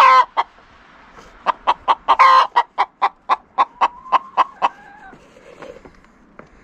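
Hens clucking in a quick run of about four clucks a second, with a louder squawk at the start and another a couple of seconds in, and one drawn-out call near the middle.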